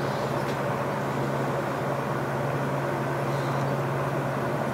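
Steady hum of an electric motor running, with a strong low drone and a constant mechanical whir that does not change.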